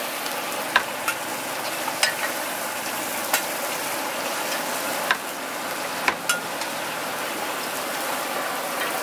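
Food frying in oil in a wok over a gas burner: a steady sizzle, with a few sharp clicks and knocks scattered through it.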